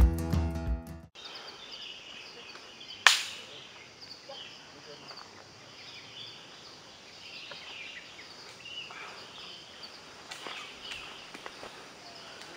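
Acoustic guitar music that cuts off about a second in, then quiet tropical forest ambience with faint, scattered high chirping calls. A single sharp click comes about three seconds in.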